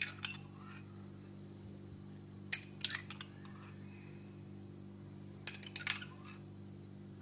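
Metal spoon clinking against glass in three short clusters of light taps, a few seconds apart, as milk is scooped from a drinking glass and spooned into glass dessert cups. A steady low hum runs underneath.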